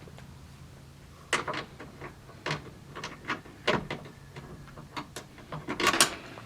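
Irregular sharp clicks and clunks of metal parts and hand tools being worked inside a car door while a power-window motor is bolted in, the loudest near the end, over a faint low steady hum.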